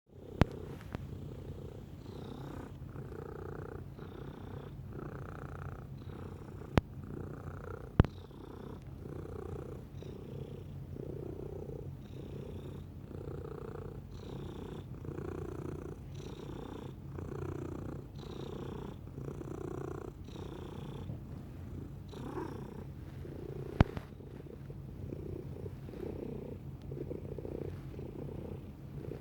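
A domestic cat purring steadily, the purr swelling and fading with each breath about once a second. A few short sharp clicks cut through it.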